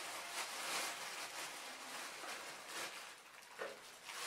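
Faint crinkling and rustling of a clear plastic bag being handled and opened.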